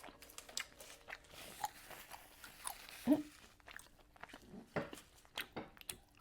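Close-miked chewing of chewy rice cakes and noodles: wet mouth clicks and smacks. A brief rising vocal sound comes about three seconds in.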